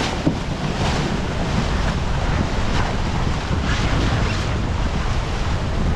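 Steady wind buffeting the microphone over the rush of water past the hull of a Farr 280 racing yacht sailing downwind at about 8 knots.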